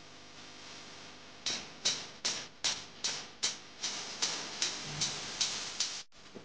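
A car's turn-signal indicator ticking evenly, about two and a half ticks a second, starting about a second and a half in and stopping near the end, over faint road noise in the cabin.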